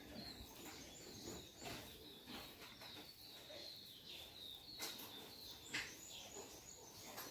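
Faint birds chirping in the background with high, thin repeated calls, and a few soft clicks.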